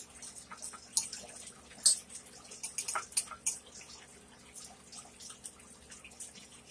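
Fork scraping and clicking against a small glass bowl, with wet, close-up mouth sounds of eating. A few sharp clicks stand out, the loudest about one and two seconds in.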